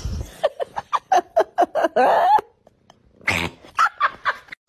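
A domestic cat making a rapid string of short vocal calls, several a second and bending in pitch, then a pause and a second, shorter string near the end.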